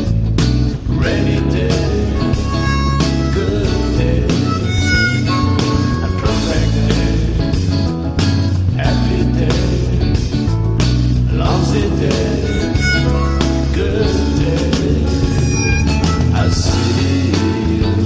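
Lyrical jazz-rock song sung in English by a male voice over guitar, bass and drums, with the lyrics running "sunny day, cloudy day, rainy day… perfect day, happy day, lousy day… I see you in sunny day."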